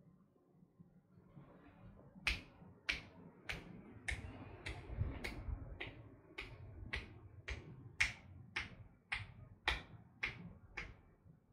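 A steady run of about fifteen sharp clicks from the masseuse's hands working the client's raised hand and arm, a little under two a second, starting about two seconds in.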